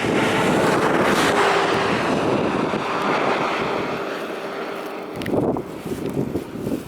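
Wind buffeting the microphone, a loud, rough rush with gusts. A faint steady hum sits underneath until about five seconds in.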